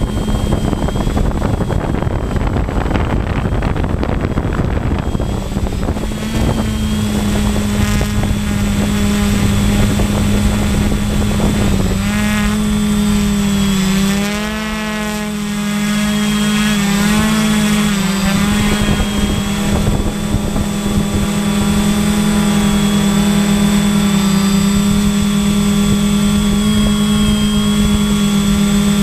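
Electric motors and propellers of a small remote-controlled drone, heard from the camera it carries: a steady, loud hum. The pitch wavers and the sound dips briefly about halfway through as the throttle changes, and a rushing noise covers the hum in the first few seconds.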